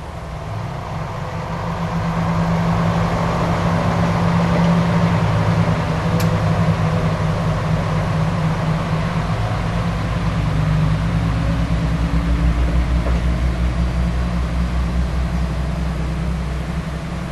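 Diesel engine of a KiHa 40-series diesel railcar running, growing louder over the first few seconds and then holding as a steady, throbbing low rumble.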